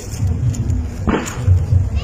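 Fireworks display: aerial shells bursting with a continuous low rumble of booms, and one sharper burst about a second in that fades quickly.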